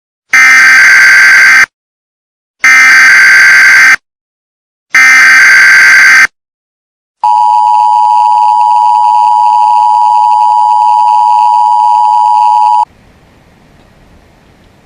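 Emergency Alert System signal for a severe thunderstorm warning: three short bursts of the warbling digital header data, about a second apart, then the steady two-tone attention signal held for about five and a half seconds. It cuts off suddenly to a faint hiss.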